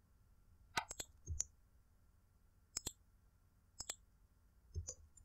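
Computer mouse clicks, faint and sharp, mostly in quick press-and-release pairs, repeated about once a second.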